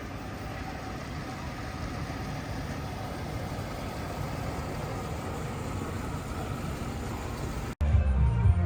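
Car engine idling steadily under a wash of outdoor noise. Near the end the sound cuts off abruptly and a louder low rumble begins.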